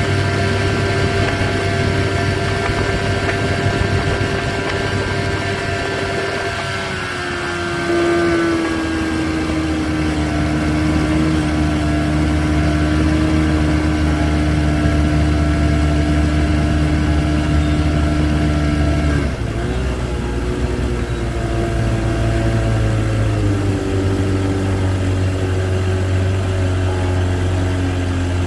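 Boat's outboard motor running steadily at low speed, its engine note dropping in pitch about seven seconds in and shifting twice more in the last third as the throttle changes.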